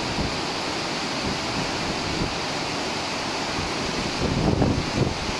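Rough sea and strong wind: a steady rush of churning waves, with wind buffeting the microphone in gusts that grow stronger near the end.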